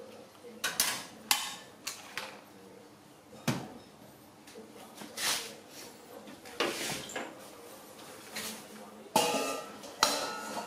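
Aluminium bowls, pots and plates clattering and clinking as they are handled and set down on the shelves of a dish cabinet, in irregular knocks every second or two, the loudest near the end.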